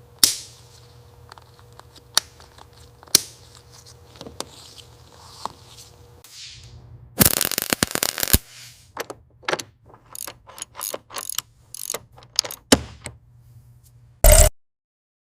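Sharp clicks and knocks of tools and parts being handled during mechanical work, with a dense rattling run of clicks about seven seconds in, a string of separate clicks after it, and a short loud burst near the end.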